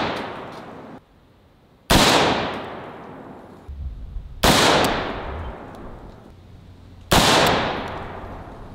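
An AR-15-style rifle fires three single shots of green tip 5.56 steel-core ammunition, about two and a half seconds apart. Each crack is followed by a long echoing decay.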